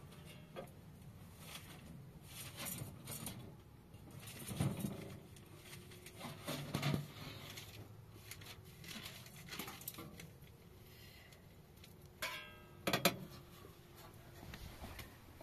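Light scraping, clinking and knocking of a small scoop clearing ash and charred wood out of a sheet-metal wood stove into a basin, with a short rattle and a sharper knock near the end.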